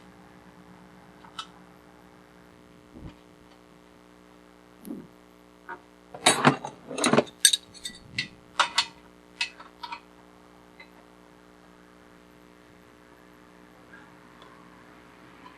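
Irregular metal clinks and knocks of a wrench, washers and nut being handled as a wheel nut goes onto a bolt, with about a dozen sharp strikes bunched between about five and ten seconds in. A low steady hum runs underneath.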